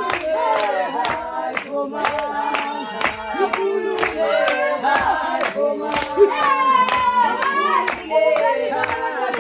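A group singing a Xhosa traditional song together, with steady hand clapping of about two claps a second keeping the beat.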